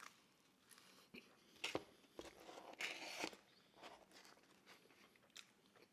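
Close-miked chewing and biting of pizza: scattered mouth clicks and soft crunches, with a denser crunching stretch a little before the middle.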